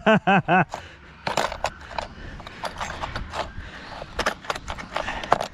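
A short burst of laughter, four or five quick pulses, then scattered light clicks and metallic clinks of small parts and tools being handled during work on an RC car.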